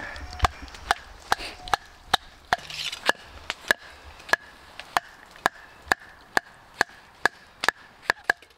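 Hatchet chopping a wooden stick, about twenty sharp, regular blows a little over two a second, each with a brief ring.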